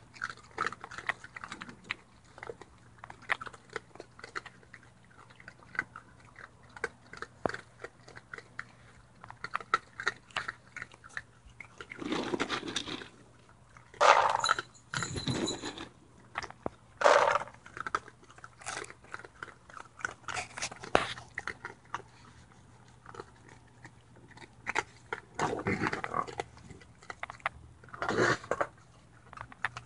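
Raccoons, a mother and her young, crunching and chewing dry pet-food kibble at close range: a steady run of small crisp crunches, with several louder, longer bursts in the middle and near the end.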